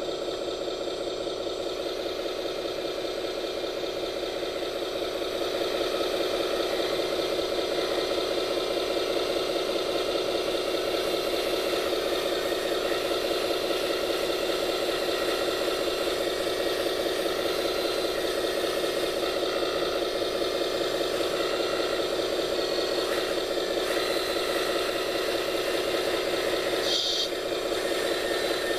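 RC4WD radio-controlled scale construction machine running steadily, a mechanical whir with a rattle, a little louder from about five seconds in. A brief high-pitched sound near the end.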